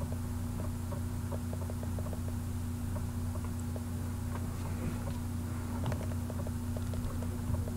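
Steady low electrical hum, with faint small clicks and taps scattered throughout.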